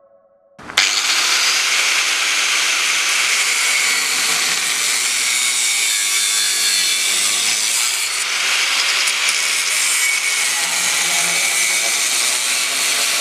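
Angle grinder with a cut-off disc cutting through steel sheet metal, the fender lip of a Jeep Wrangler. It starts abruptly about a second in and then runs steadily as a loud, hissing grind.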